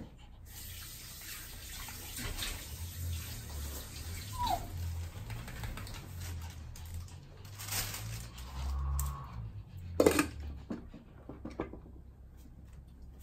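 Water running steadily, with scattered light clicks and one sharp knock about ten seconds in, after which the running stops.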